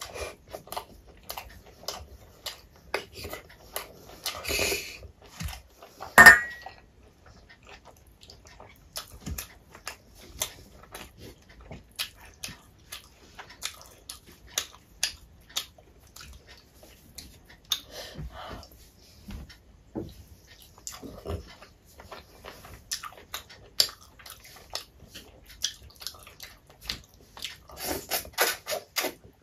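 Close-miked eating sounds of a person eating curry and rice by hand: wet chewing, lip smacks and mouth clicks, many short and sharp in a row. One louder wet smack or slurp comes about six seconds in.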